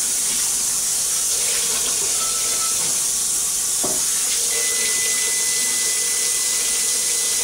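Hot water running from a kitchen faucet onto a cast iron skillet and into a stainless steel sink as the pan is scrubbed with a dish brush: a steady hiss of water. A faint high whistle joins in about halfway through.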